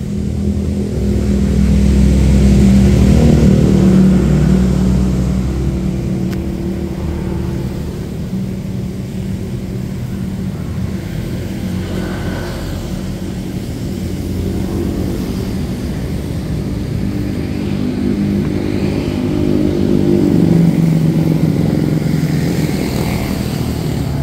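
Street traffic: motor vehicles driving past, a steady engine hum that swells twice, a couple of seconds in and again near the end.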